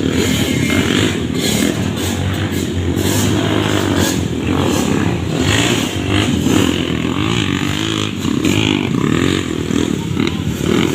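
Motocross dirt bike engines running and revving as the bikes race around a muddy track.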